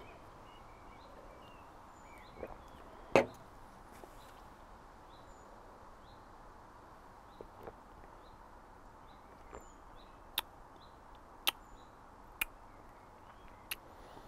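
A man sipping and tasting beer: a sip about three seconds in, then a few short sharp mouth clicks and lip smacks over a quiet background of faint bird chirps.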